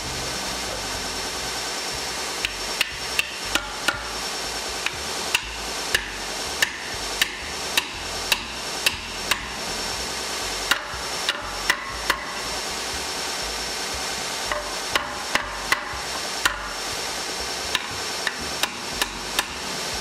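Hammer blows on the wooden spokes of a wagon wheel set in a metal Sarven hub: sharp strikes in three runs, about two to three a second, with short pauses between.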